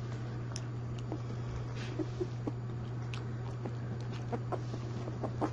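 A steady low hum, with small scattered clicks and rustles from a two-week-old English bull terrier puppy moving and being handled on a blanket.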